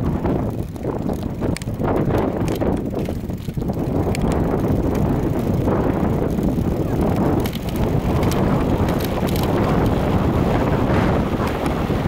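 Wind rushing over the microphone of a bicycle coasting downhill, mixed with tyre-on-asphalt rumble, a steady low noise with a few scattered clicks and rattles.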